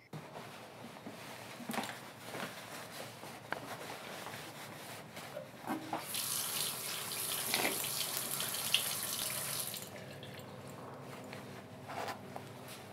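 A tap running into a sink for about four seconds, turned on about six seconds in and shut off again. Small clicks and knocks of things being handled come before and after it.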